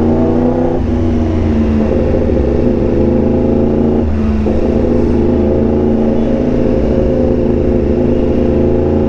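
Yamaha R1M's crossplane inline-four running through an SC-Project exhaust under way, a steady engine note that breaks briefly twice, about a second in and about four seconds in.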